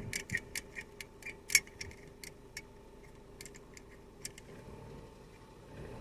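Irregular light clicks and ticks of the metal pedal depressor rod being set against the accelerator pedal, many in the first two and a half seconds and a few more about a second later, over the faint steady hum of the running engine.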